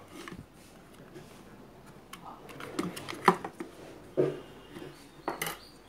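Small metal tools clicking and tapping against a circuit board and the workbench, a scattered series of sharp clicks with the loudest about three seconds in.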